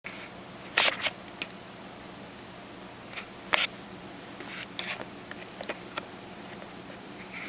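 A puppy chewing on a chew toy: irregular clicks and crunches of teeth on the toy, the loudest about a second in and again about three and a half seconds in.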